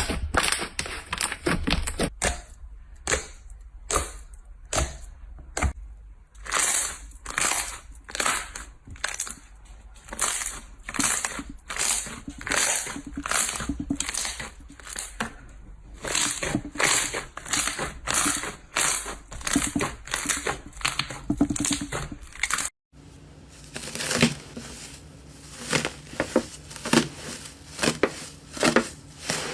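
Slime being squeezed and pressed by hand: a run of crackling, squelching strokes, about two a second. The sound breaks off abruptly twice and carries on with a slightly different texture.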